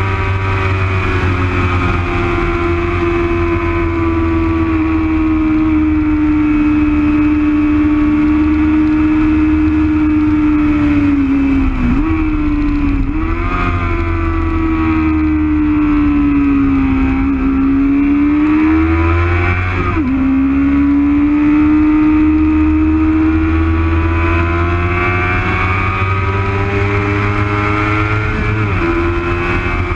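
Onboard sound of a racing motorcycle's engine running hard on track, its pitch sliding slowly down and up with the throttle and jumping abruptly at a few gear changes, over a steady rush of wind and road noise.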